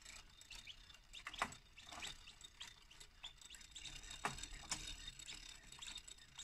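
Clockwork movement of a 19th-century French singing bird automaton running: its gears and cams make faint, irregular clicks and ticks, with a few sharper clicks about a second and a half and four seconds in.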